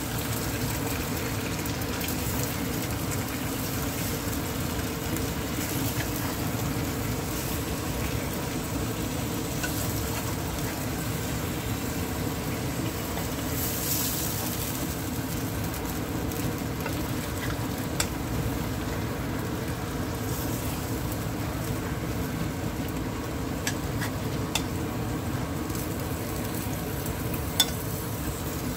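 Mango pieces sizzling as they fry in a metal pot of hot oil and caramelised sugar, stirred with a metal spoon. The sizzle is steady, with a few sharp clicks of the spoon against the pot.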